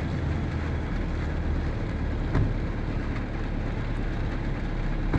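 Steady rain falling in a downpour, with the low, even hum of a vehicle's engine running.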